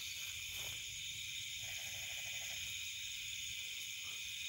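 Nighttime insect chorus in forest undergrowth, a steady high-pitched chirring. A fainter pulsing call joins for about a second near the middle.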